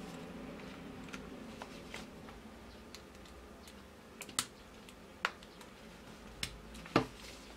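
Faint clicks and taps of small parts being handled, as a 3.5 mm audio plug is fitted to a small Bluetooth adapter and a 9V battery snap connector is clipped onto a 9V battery terminal. The sharpest clicks come in the second half.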